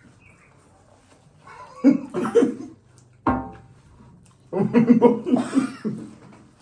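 People laughing and exclaiming in short bursts, with no clear words: one about two seconds in, a sharp cry at about three seconds, and a longer burst from about four and a half to six seconds.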